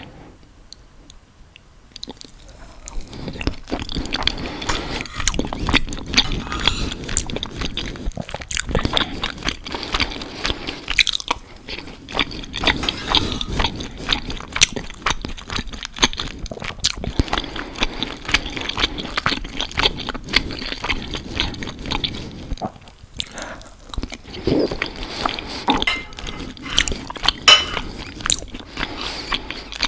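Close-miked eating: biting and chewing food, with many irregular sharp clicks and wet mouth sounds, starting about two seconds in after a short quiet moment.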